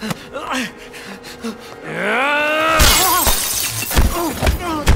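Film fight sound effects: hard blows landing, and a man's cry of pain rising in pitch about two seconds in, followed by a harsh crashing noise and pained groans.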